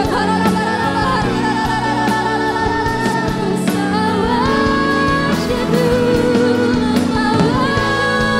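Contemporary worship music: a woman sings lead into a microphone over instrumental accompaniment, holding long notes with vibrato.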